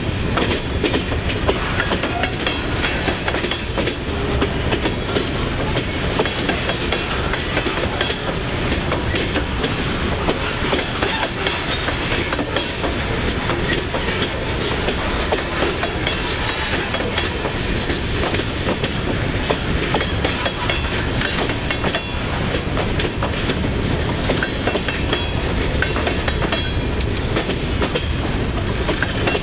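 Union Pacific freight cars (hoppers, covered hoppers and boxcars) rolling past at steady speed, the steel wheels clicking and clattering over the rails in a continuous, even noise.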